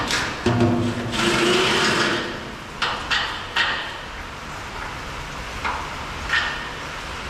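Steel bolts and hardware knocking and scraping against a truck's steel mounting channels as they are worked into the holes, with a longer scrape about a second in and several sharp metal knocks after it.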